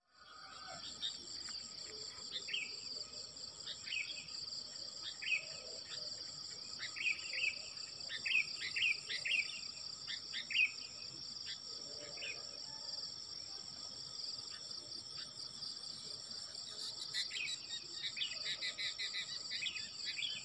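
Insects trilling steadily at a high pitch, with bursts of short, quick bird chirps scattered over the first half and again near the end.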